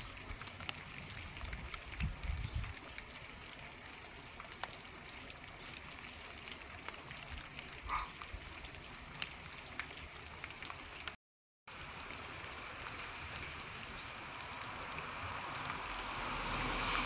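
Faint outdoor ambience after rain: a steady light hiss with scattered small drips of water, and a broad rushing noise that swells toward the end.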